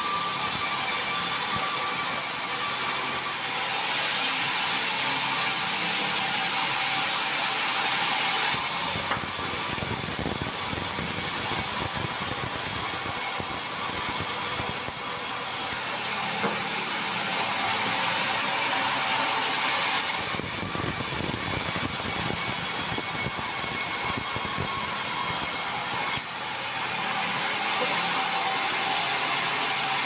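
Sawmill band saw running continuously, its blade cutting red meranti timber into thick boards. The noise is steady, with a faint high whine, and its character changes every few seconds.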